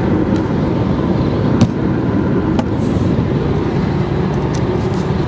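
Steady road and engine noise heard inside a car's cabin while driving at highway speed, with a sharp knock about a second and a half in.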